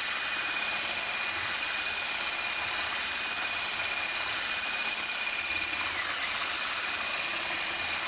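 Electric hand mixer running steadily, its beaters whipping a half-frozen lúcuma ice cream mixture in a plastic bowl to break up the ice crystals. Its high whine dips briefly about six seconds in.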